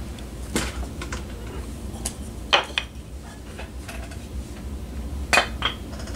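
Wooden-block weights being lifted off a glued foam float and set down on a workbench: a handful of sharp knocks and clinks, the loudest about two and a half seconds in and again near the end, over a low steady hum.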